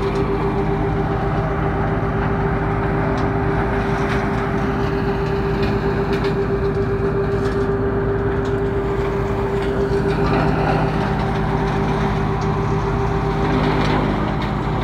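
Engine-driven leaf-and-branch chopping machine running steadily under load, with a constant loud hum, as leafy branches are fed in and the chopped leaves are blown out of its chute.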